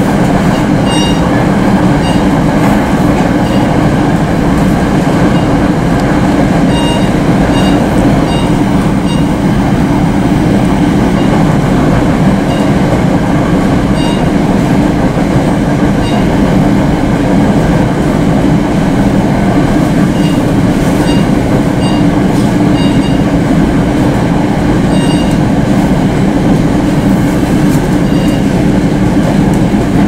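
Passenger train car running at speed, heard from inside: a steady rumble from the wheels and running gear, with short high chirps coming and going.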